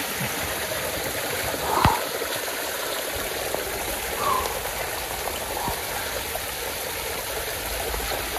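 Steady rushing of water, with one short knock about two seconds in.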